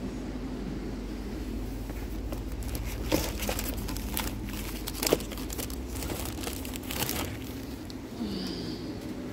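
Crinkling and rustling with a run of sharp clicks in the middle, over the steady low hum of a supermarket's cooling and ventilation.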